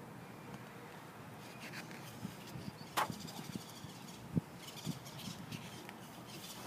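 Faint outdoor ambience with light rustling and a sharp tap about three seconds in, from handwritten poster-board cards being handled and swapped.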